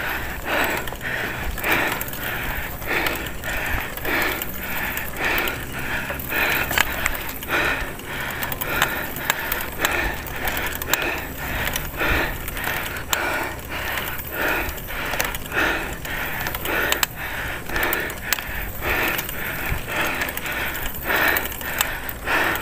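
A cyclist breathing hard and rhythmically while pedalling up a steep climb, the breaths coming a little under two a second, over a low steady rumble of riding.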